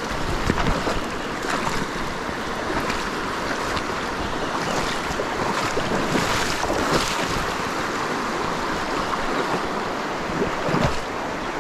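Rushing water of a small stream running high, with wind noise on the microphone and brief splashing around the middle and near the end as a trout is brought to the net.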